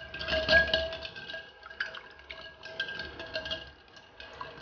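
Duck eggs being washed by hand in a ceramic bowl of water: water swishing and sloshing around the hands, loudest about half a second in and then quieter, with the shells clicking now and then against each other and the bowl.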